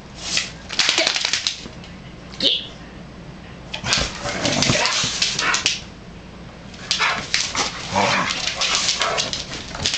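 Two pit bulls play-fighting, with rough growling and snarling in about four bouts separated by short pauses.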